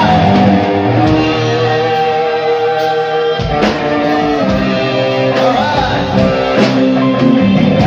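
Live rock band playing loudly: electric guitar with a vocalist singing over it, with held notes throughout.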